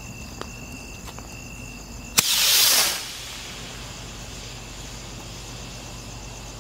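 Diwali sky rocket launching: a sharp pop about two seconds in, then a loud hissing rush for about a second as its motor drives it upward, fading away.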